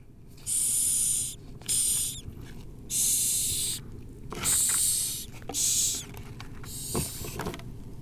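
Madagascar hissing cockroach hissing in about six short bursts, each under a second, with short gaps between them. The hiss is air forced out through the breathing pores along its abdomen.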